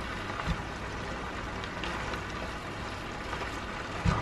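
Menudo cooking in a frying pan with a steady sizzle while a spatula stirs and scrapes through the chunks of pork, potato and vegetables, with a short knock of the spatula against the pan near the end.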